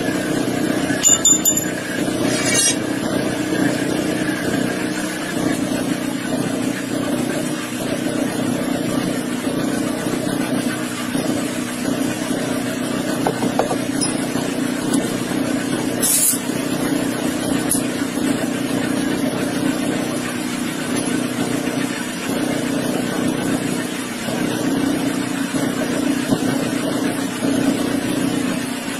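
Engine running steadily with a low, even drone, with a few light clicks in the first few seconds and a short hiss about sixteen seconds in.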